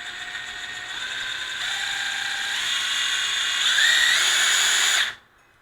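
Hitachi 14.4 V brushless cordless driver running free on a test, its motor whine stepping up in pitch and loudness as it speeds up, then stopping abruptly after about five seconds.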